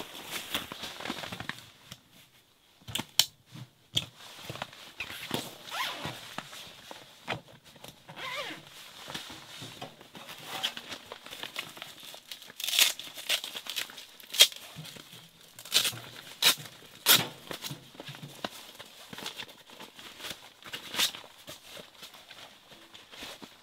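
Paper being torn and crumpled by hand, with several sharper, louder rips in the second half, over the rustle of clothing and tent fabric.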